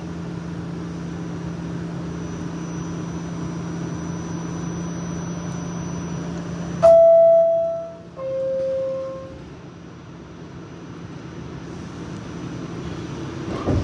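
R46 subway car standing at a station with a steady electrical hum. About seven seconds in, the loud two-tone door chime sounds, a higher tone then a lower one, warning that the doors are about to close. A short knock follows near the end.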